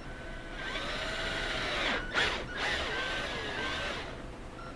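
A hand-held power drill runs a 5/16-inch bit through a soft plastic motorcycle fork guard, starting about half a second in and stopping near the four-second mark. Its pitch rises and falls as the bit cuts, with a brief louder moment a little past the middle.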